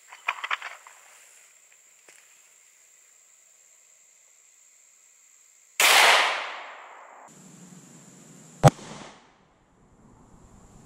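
A Glock 43 subcompact 9mm pistol firing a single 124-grain Speer Gold Dot round: a sharp crack about six seconds in, with an echo that dies away over about a second. About three seconds later comes a second short, sharp crack.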